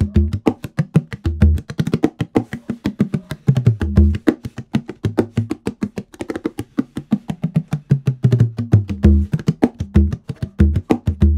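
Bodhrán with a Sika deer skin head on a 13-inch frame, played with a tipper in fast, continuous rolling strokes. Its deep tone steps back and forth between lower and higher notes as the rhythm goes on.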